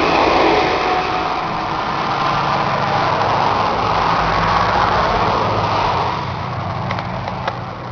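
New Holland TB100 tractor's diesel engine idling steadily, heard close to the engine bay. It gets somewhat quieter about six seconds in, with a couple of light clicks near the end.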